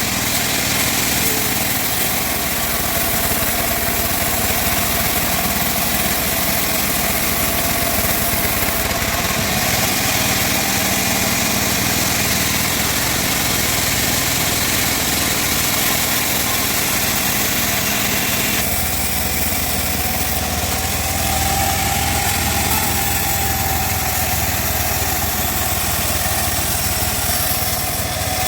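Wood-cutting band saw running steadily, a loud motor drone with a faint whine over it. About two-thirds of the way through, the low drone gets stronger.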